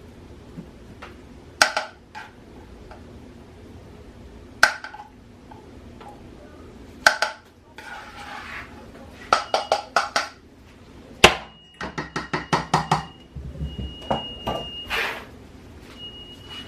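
A metal spoon knocking and clinking against cookware, with a few separate sharp knocks and then quick runs of taps, like a spoon tapped on a pot rim. A thin high steady tone comes and goes in the second half.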